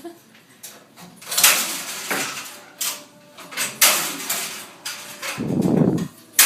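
Ceiling material and insulation being pried and torn down: a series of short, noisy scrapes and clatters, with a louder, lower rush of noise near the end.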